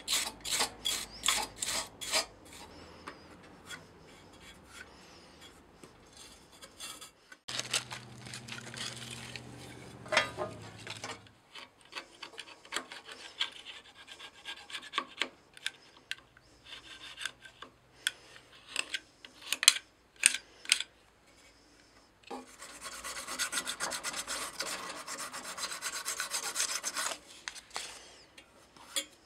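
A flat metal blade scraped and rubbed back and forth over the carburetor mounting flange of a Briggs & Stratton 5 HP engine, cleaning off old gasket residue. The strokes come in quick runs at the start and in a longer continuous stretch near the end, with scattered single strokes between. A low hum runs for a few seconds about a third of the way in.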